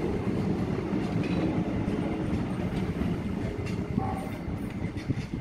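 Passenger coaches of an Indian Railways express rolling past, with a steady low rumble of wheels on rails and a few clicks. The rumble eases slightly near the end as the brake van at the tail goes by.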